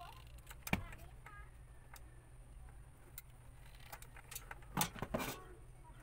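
Clicks and knocks of pliers and plastic wiring fittings being handled: one sharp knock just under a second in, then a cluster of clicks near the end.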